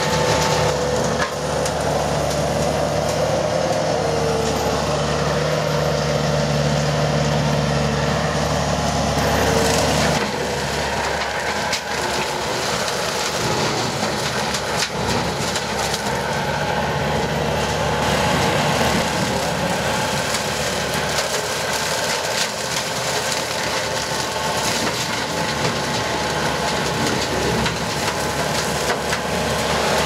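Skid steer brush cutter's spinning blades chewing through brush and saplings, with wood cracking and splintering over the steady hum of the Bobcat T300 compact track loader's diesel engine and the mower's hydraulic drive.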